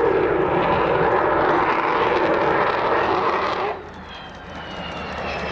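Jet noise from Avro Vulcan XH558's four Rolls-Royce Olympus engines flying past: a loud rushing roar that drops away suddenly a little under four seconds in. It is followed by quieter engine sound that builds again, with a high whine slowly falling in pitch.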